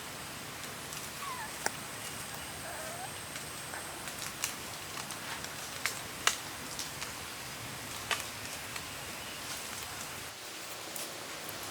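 Steady background hiss with scattered sharp clicks and taps, and two faint short squeaks or chirps, about one and three seconds in.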